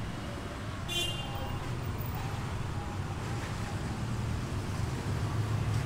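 Road traffic running steadily, a low engine rumble under a wash of road noise, with a brief high-pitched sound about a second in.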